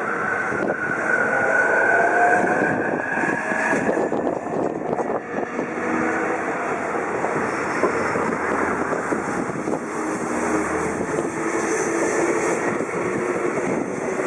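JR East E233-3000 series electric train pulling out and gathering speed, its Hitachi IGBT-VVVF inverter motors whining with a tone that rises in pitch over the first few seconds, over the steady rumble of wheels on rail. Later the whine settles into lower, steadier tones as the cars run past.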